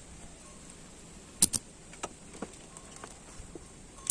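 Sharp clicks, a quick pair about a second and a half in and another near the end, with a few fainter ticks between.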